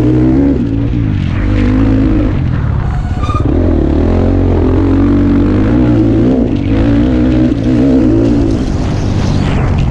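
Enduro dirt bike engine under hard riding, its pitch rising and falling as the throttle is opened and rolled off, with several brief drops in revs. Heard from the rider's helmet.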